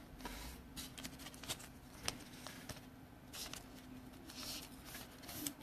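Faint rustling and light clicks of trading cards being handled, with a few short soft swishes.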